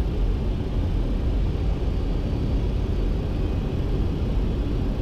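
Flight-deck noise of a Boeing 737-200 on final approach with gear down and flaps at 30: a steady low rumble of airflow and engines.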